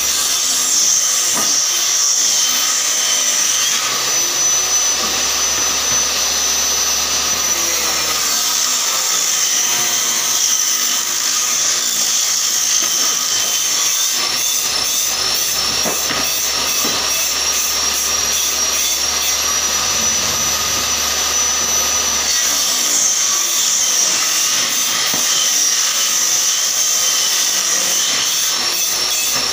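Table saw running and ripping wood into thin strips: a loud, steady high whine that sags slightly in pitch through the middle of the cut as the blade takes the load, then comes back up.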